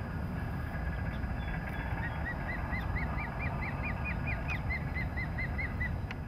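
A bird calling a rapid series of short, upslurred chirps, about five a second for nearly four seconds, starting about two seconds in and rising a little in pitch mid-run before dropping back. A steady low rumble of wind or surf runs underneath.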